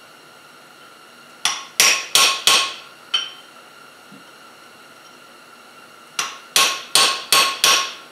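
Ball peen hammer striking a veining chisel held on a mild steel leaf on the anvil, cutting the vein lines. The blows come in two runs: four quick strikes and a lighter tap, then a pause and five more strikes, each ringing briefly.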